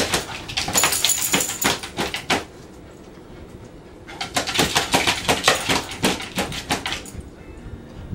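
A small dog scratching frantically with its front claws at the bottom of cabinet doors, in two quick flurries of rapid scraping with a pause between.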